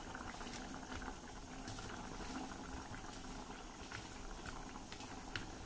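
Faint wet squishing and smacking of hands rubbing a moist spice paste onto fish pieces in a steel plate, with scattered small clicks.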